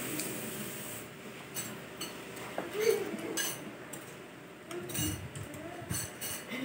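Metal spoons clinking and scraping against bowls during a meal: scattered light clicks, a few with a short ring.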